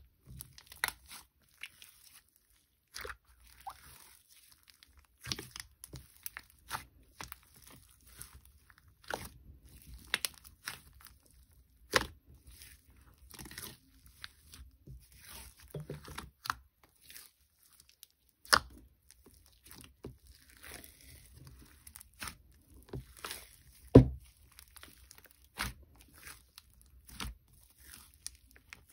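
Handful of glue slime being kneaded and stretched, giving off irregular sticky pops, crackles and tearing snaps, with one louder pop late on.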